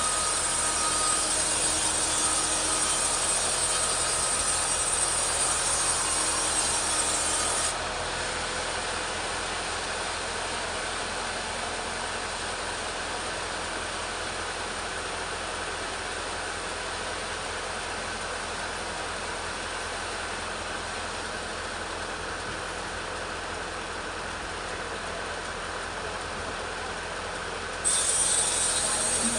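Two-stroke petrol chainsaw running under load, ripping a teak log lengthwise. The sound turns quieter and duller about eight seconds in, then comes back at full level near the end.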